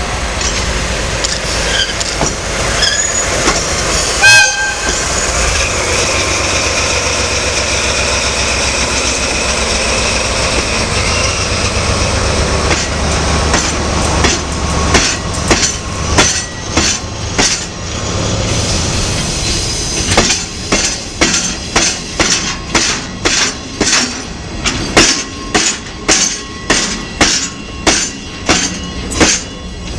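DE10 diesel-hydraulic locomotive passing slowly with its engine running, and a brief shrill tone about four seconds in. Then the wheels of the heavy Shiki 800 and Shiki 801B2 transformer wagons hammer over a rail joint in repeated clusters of heavy clacks, about two a second through the second half. The clacks are hard because of the heavy transformer load and a step in tread height where rails of different sizes meet.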